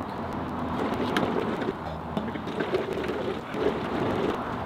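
Air blown by mouth through a length of heater hose into the water-cooled intercooler's coolant circuit, pushing the old coolant out into a plastic jug: a steady rushing noise of air and liquid.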